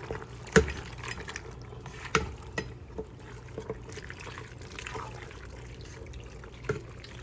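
Penne being stirred into a creamy Alfredo sauce in a pot: wet, liquid stirring sounds, with a spoon knocking against the pot several times, most sharply about half a second in.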